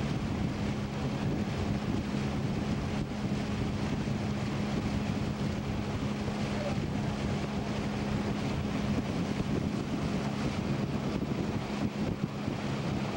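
Small boat's outboard motor running at a steady speed with an even low hum, mixed with wind buffeting the microphone.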